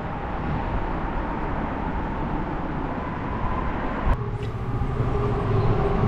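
A motor running with a steady hum under a wash of noise. A sharp click comes about four seconds in, after which a lower, louder hum sets in.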